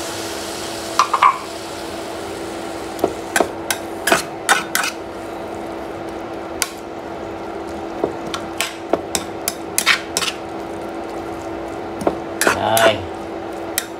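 A metal spatula clacking and scraping against a frying pan as vegetables are stir-fried, in irregular strikes, over a steady hiss and low hum.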